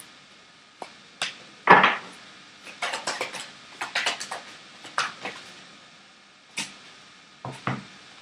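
A deck of tarot cards being shuffled by hand, with a series of crisp card snaps and flicks in little clusters, and cards set down on a wooden table. The loudest is a single fuller slap about two seconds in.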